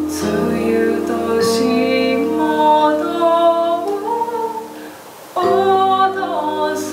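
Woman singing a slow, gliding melody over sustained electronic keyboard chords. Just before five seconds in, the music thins out briefly, then voice and keyboard come back in together.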